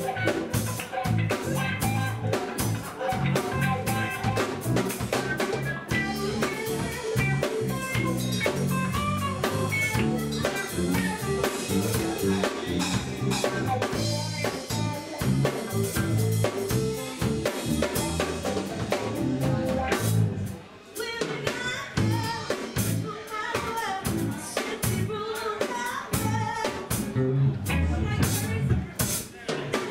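Live band playing with drum kit, electric guitars and a female singer, with a brief break about two-thirds of the way through.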